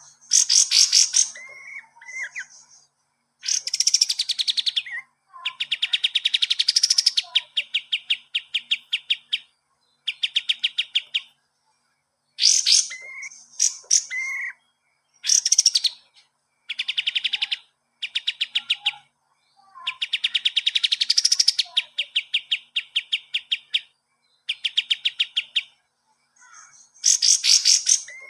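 A kapas tembak songbird singing vigorously, the kind of song kept as a tutor recording for cage birds. It repeats loud, fast trilled phrases of evenly spaced high notes, each one to three seconds long with short breaks, mixed with brief chirps and short up-and-down whistles.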